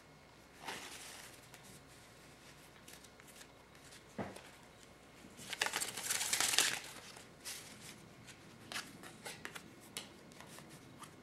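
A deck of paper playing cards being handled: faint rustling of the card edges as a wide fan is closed and the deck squared, with a louder swish of cards about six seconds in and a few light ticks after it.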